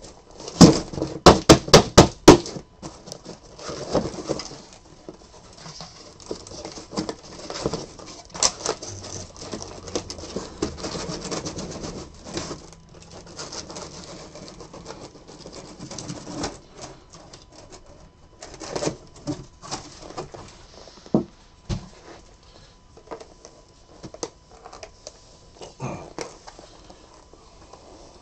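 Cardboard shipping case and sealed card boxes being handled: a quick run of sharp knocks in the first couple of seconds, then scattered rustling, scraping and light knocks as the boxes are slid out and stacked on the table.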